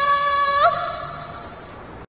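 A woman's voice holding one long, high, steady cry. It breaks off with a small upward lift just over half a second in, then fades away.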